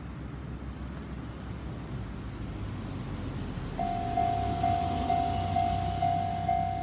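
A low steady rumble, then, about four seconds in, a Japanese level-crossing warning signal starts sounding its electronic bell tone about twice a second, the sign that a train is approaching the crossing.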